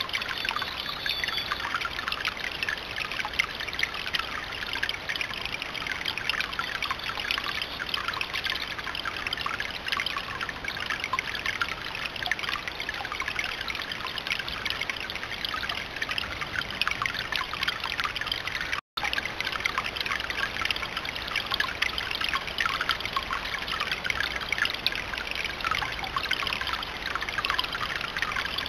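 Water trickling and splashing steadily over a rock fountain, a dense patter of small drips and splashes. The sound cuts out for an instant about two-thirds of the way through.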